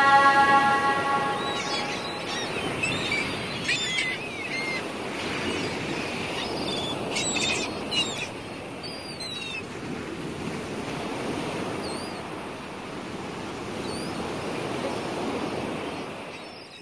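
Sea surf washing onto a beach, with gulls giving short calls over it, in two bursts and then faintly a few times more. The last held chord of a song fades out in the first couple of seconds.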